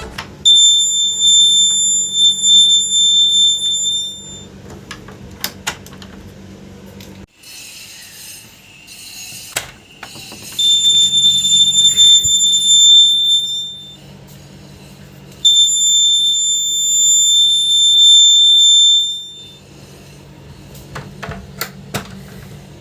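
Homemade door alarm's buzzer sounding a steady, shrill single-pitched beep three times, each lasting about four seconds, with a few sharp clicks in the gaps between.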